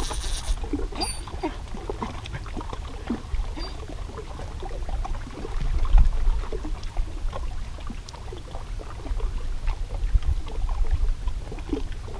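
Wind rumbling on the microphone, with small waves lapping and gurgling against rocks at the water's edge; the wind swells louder about halfway through.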